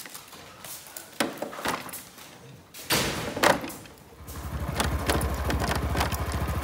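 A few short knocks and clicks, then a burst of noise about three seconds in. From about four and a half seconds a motorcycle engine is idling steadily.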